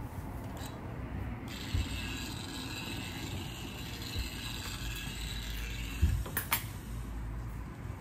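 Shirt fabric being pressed with a gravity-feed industrial steam iron: a few soft knocks of the iron on the pressing table over a low steady hum, and a sharp click about six and a half seconds in.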